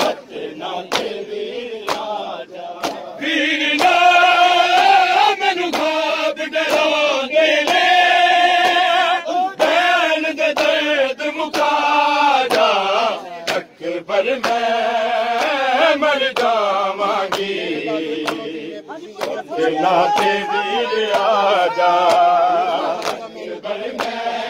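A large crowd of men chanting a noha, a Shia mourning lament, together. Sharp slaps of hands striking chests in matam cut through the chanting.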